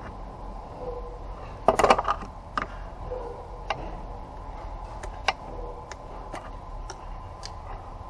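Metal hand tools clinking and clicking against engine parts: a quick cluster of clinks about two seconds in, then single sharp clicks every second or so, over a steady background hum.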